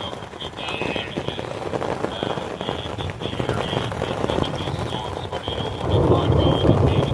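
Rain pattering on a backpacking tent's fabric in a thunderstorm, with a louder low rush near the end.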